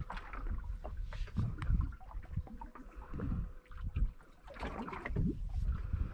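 Wind buffeting the microphone in gusts on an open boat at sea, with water lapping and a faint steady hum beneath. A few small clicks come through.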